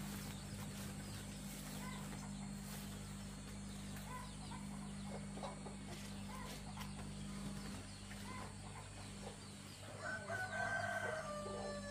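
A rooster crowing once, about ten seconds in, after a steady low hum fades out.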